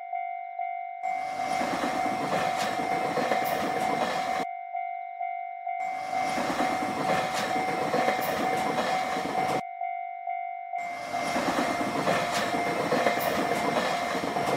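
Japanese railroad crossing warning bell dinging steadily at about two strokes a second, while three trains pass through the crossing one after another, each a few seconds of rumbling wheel noise with short gaps between.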